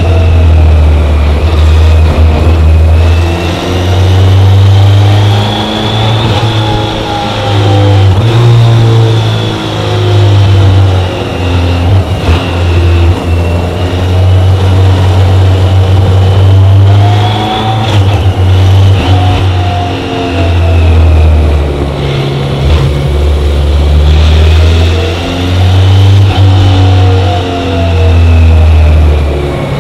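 BMW K1100LT's inline four-cylinder engine running under way, its pitch rising and falling several times as the rider opens and closes the throttle through the curves.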